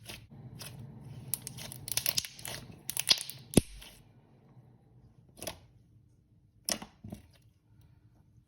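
Thick slime being pressed and stretched in the hands, crackling with many small clicks and pops for a few seconds, then only a few separate pops.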